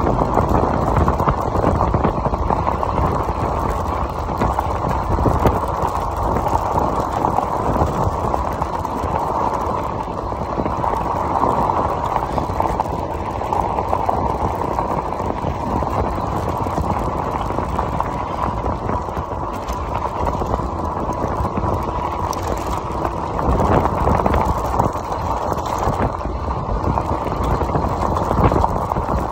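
Voltbike Yukon 750 fat-tire e-bike rolling steadily along a gravel road: a continuous crunching rumble of the wide tires on loose gravel, mixed with wind on the microphone.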